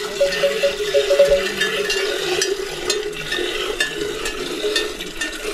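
Bells on grazing livestock clinking and ringing irregularly, many short clear notes overlapping, as the animals move.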